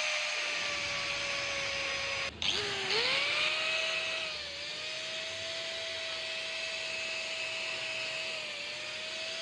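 Electric angle grinder with a red abrasive fibre buffing wheel, running at speed and scrubbing rust off a small pistol part. The steady whine cuts out a little over two seconds in, then comes back with a rising pitch as the grinder spins up again. The pitch dips briefly twice later on.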